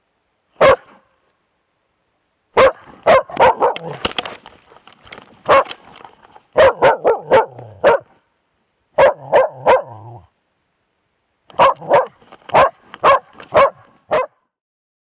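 A young hunting dog barking hard at close range, right at the microphone it carries, in quick runs of several barks with short pauses between: bay barking at a moose cow and calf.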